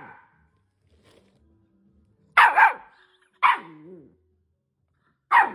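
A Keeshond puppy barking three sharp times in protest at being asked for a high five, about two seconds in, a second later, and near the end. The middle bark trails off into a short wavering growl.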